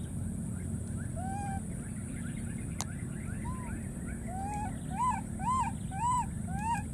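Baby macaques calling: short, thin rising chirps repeat through, then in the last two seconds a run of five louder arched cries, each about a third of a second long.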